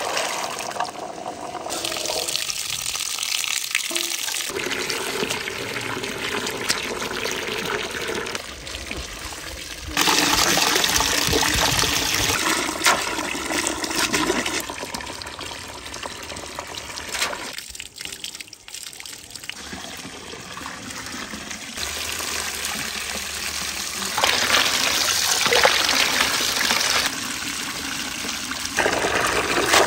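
Water from a garden hose gushing and splashing into a metal basin full of cornelian cherries as the fruit is washed, with water spilling over the rim. The flow gets louder about a third of the way in, dips briefly just past the middle, and rises again near the end.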